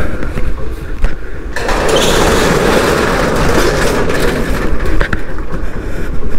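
Corrugated metal rolling shutter being pulled down, a rattling rush that starts about a second and a half in and lasts about three seconds, over a steady low rumble.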